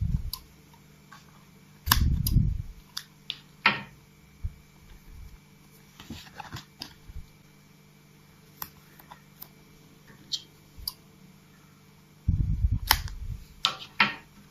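Hands working a paper-craft model: card and double-sided tape rustling and crinkling, with small crisp clicks. Dull low bumps of handling come about two seconds in and again near the end.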